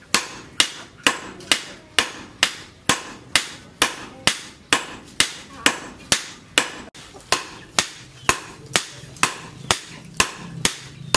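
Two sledgehammers taking turns on a red-hot leaf-spring steel blade on an anvil, during hand forging of a billhook. A steady rhythm of about two sharp, ringing blows a second.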